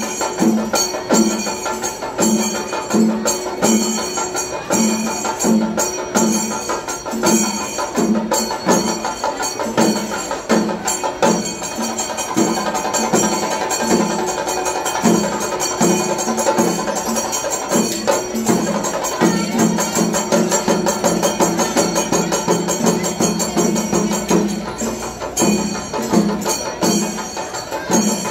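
Rhythmic percussion music: a steady low beat about one and a half times a second with clattering, jingling percussion over it. The beat gives way to a held low tone for a few seconds past the middle, then comes back.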